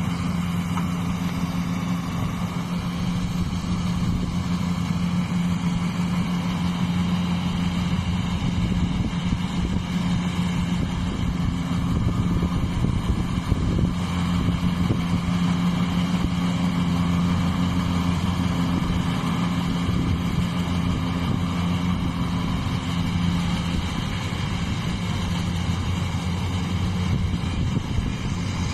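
Engine of rice harvesting machinery running steadily at constant speed, a continuous low hum without pauses.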